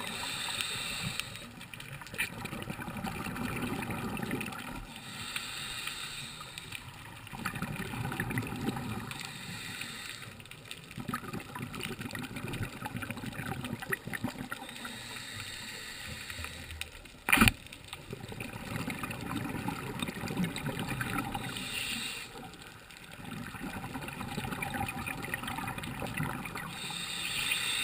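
Scuba diver breathing through a regulator underwater: a short hiss on each inhalation alternates with a longer bubbling of exhaled air, repeating every several seconds. A single sharp knock comes about two thirds of the way through.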